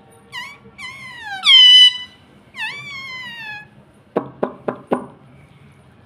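Rose-ringed parakeet (Indian ringneck) giving a string of four high calls that fall in pitch, the loudest about a second and a half in, followed by four sharp taps.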